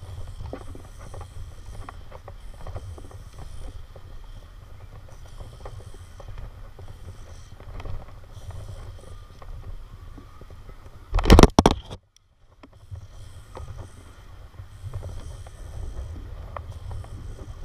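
Wind buffeting the microphone of a body-worn camera during a rope descent: a steady low rumble with faint clicks and rubbing from the rope and metal carabiners. About eleven seconds in comes a loud, brief burst of noise on the microphone, and the sound cuts out for a moment after it.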